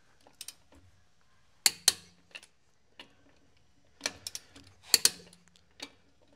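A series of sharp metal clicks and clinks as a socket is fitted onto wheel lug nuts and a click-type torque wrench tightens them to 120 lb-ft. The loudest clicks come as a close pair under two seconds in and again about three seconds later.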